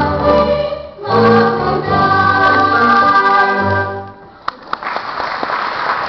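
Stage-musical ensemble singing with accompaniment, holding the final notes of a number until they stop about four seconds in. After two sharp knocks, audience applause starts near the end.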